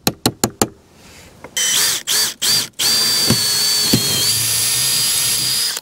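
Makita cordless drill-driver driving a bolt through a boat-ladder mounting plate. It gives three short bursts, then a steady run of about three seconds with a high whine, and cuts off suddenly. A quick run of light clicks comes before the drill starts.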